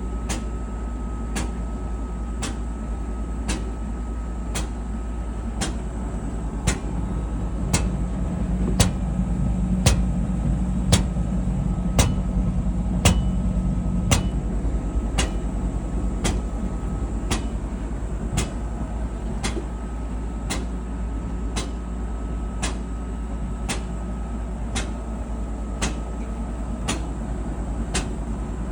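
Whirlpool clothes dryer running with a steady hum and a sharp knock repeating about once a second. The owner suspects the drum, a drum roller or the idler pulley as the cause of the knocking.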